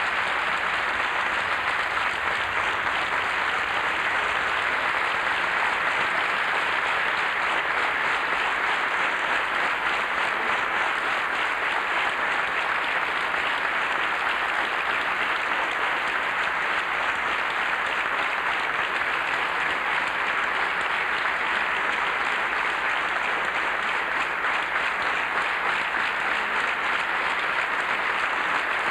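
A large audience applauding steadily and without a break, a dense wash of many hands clapping at once.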